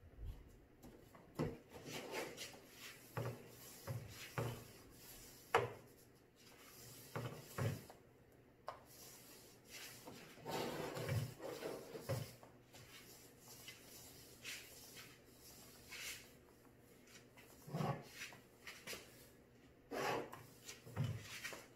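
Small foam paint roller worked in a plastic paint tray and rolled across a wooden cabinet door: irregular soft knocks and rubbing, a few sharper taps among them.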